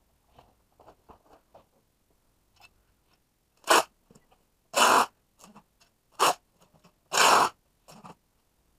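Packing tape ripped off a handheld tape-gun dispenser in four loud pulls, about a second apart and starting about four seconds in, two short and two longer. Light taps and rustles of cardboard boxes being handled come before them.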